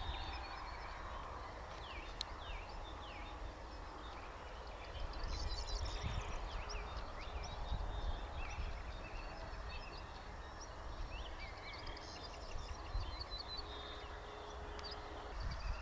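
Evening outdoor ambience of small birds singing: many short chirps and whistles from several birds, over a steady low rumble.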